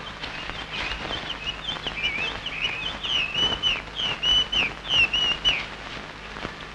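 A small bird chirping: a rapid series of short, high, falling notes, about three to four a second, that stops about five and a half seconds in.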